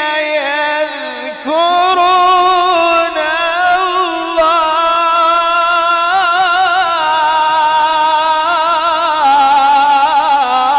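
A man's voice in melodic tajweed Quran recitation (tilawat), holding long ornamented notes with a wavering vibrato. The voice breaks briefly about a second and a half in, then sustains a high note and steps down in pitch near the end.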